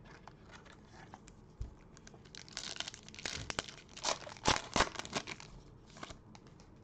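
Foil wrapper of a Panini Prizm basketball-card retail pack crinkling and tearing as it is ripped open by hand, starting about two and a half seconds in and loudest around four to five seconds.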